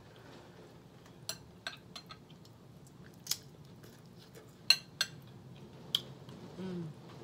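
Close-miked eating of a smoked turkey wing: chewing with a string of sharp, wet mouth clicks and lip smacks, the loudest about four and a half seconds in, as meat is pulled off a fork and fingers are sucked clean. A brief low hum comes near the end.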